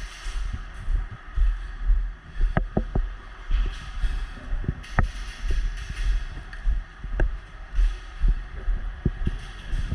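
Irregular dull low thumps, about two a second, with a few sharp snaps in the middle: handling and movement noise during an indoor airsoft game, with occasional sharp cracks.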